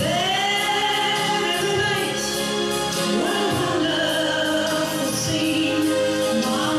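Recorded waltz-time pop song: a woman's voice sings long held notes over the band's backing, a new note rising in about halfway through.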